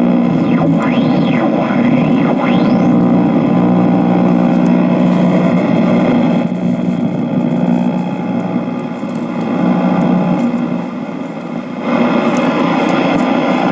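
1940 Philco 40-155 tube radio being tuned across the AM band: static and hiss over a steady hum, with whistles that slide up and down in pitch as the dial passes stations in the first few seconds. The sound softens in the middle and comes back to full strength near the end.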